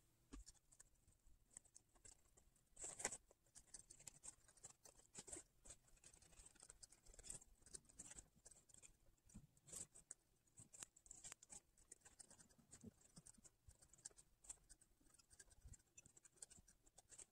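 Faint scissors snipping through printed fabric, with small, scattered snips and fabric rustles.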